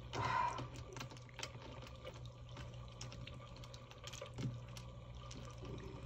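Letter tiles clicking lightly as they are drawn and laid out: a louder clatter right at the start, then scattered faint clicks.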